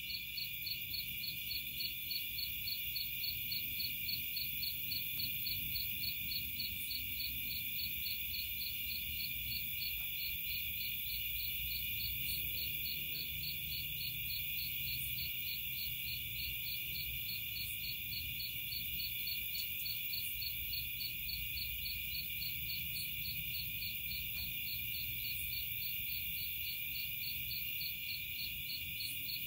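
Night insect chorus: a dense, steady trilling with a chirping pulse that repeats about twice a second.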